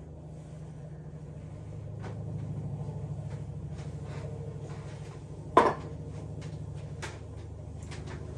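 Small clicks and taps from handling a metal pipe-tobacco tin, with one sharp click a little past halfway and a softer one about a second and a half later, over a steady low hum.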